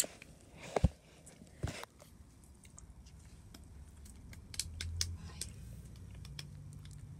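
Kittens playing on a wooden floor close to the phone: a few sharp knocks in the first two seconds, the loudest a quick pair just before a second in, then light scattered ticks and scratching.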